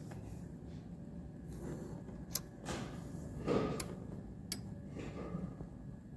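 Workshop handling sounds: a few sharp clicks and a louder scraping rustle about midway, over a steady low hum.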